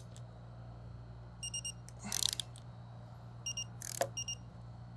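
Torque wrench on the RB4002 blower's bearing-housing bolts: short high electronic beeps in quick pairs, several times, each near a brief rasp of the wrench being worked. This is the wrench signalling that the 36 ft-lb set torque has been reached. A steady low hum runs underneath.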